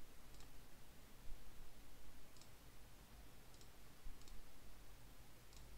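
About five faint computer mouse clicks, spaced a second or so apart, over low steady room noise.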